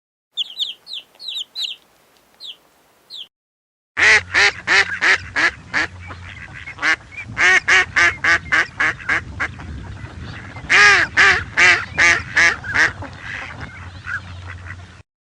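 Birds calling: a few thin, high chirps, then from about four seconds in a long run of harsh, repeated calls, several a second, over a low steady hum.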